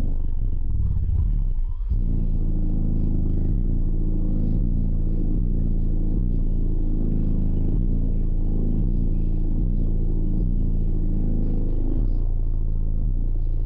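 Three Skar EVL 15-inch subwoofers on a 3,000-watt Audiopipe amplifier, in a box tuned to 31 Hz, playing bass-heavy music loudly inside the vehicle cabin, the deep bass notes shifting in pitch. The bass drops out briefly about two seconds in.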